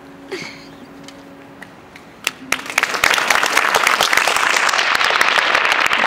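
Audience applause: a few scattered claps about two seconds in, then the whole audience breaks into loud, sustained clapping about three seconds in. Before the applause a faint steady tone cuts off.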